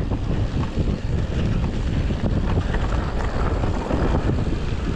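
Wind buffeting the microphone of a GoPro on a mountain bike riding a trail, with the bike rattling over rough ground in many short clicks.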